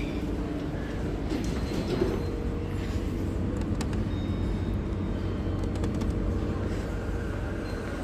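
Steady low rumble of shopping-centre background noise, with a few light clicks in the middle.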